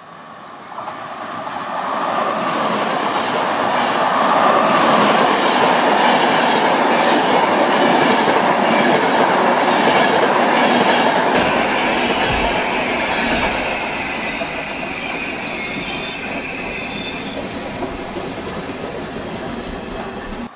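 Passenger train passing close at speed, coaches running over the rails with a rhythmic clatter. It swells to a peak a few seconds in and then slowly fades as the train goes by. A faint high wheel squeal comes in during the second half.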